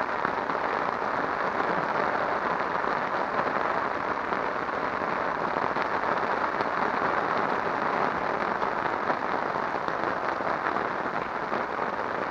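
Steady rain falling, a dense patter of many small drop impacts.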